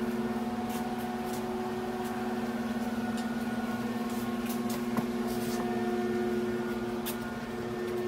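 A steady low hum at one fixed pitch, with a few faint ticks over it.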